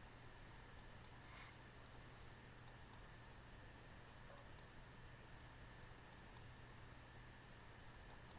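Faint computer mouse clicks, a few spread a second or two apart, some in quick press-and-release pairs, over a low steady hum: each click on a spreadsheet button adds the next running total.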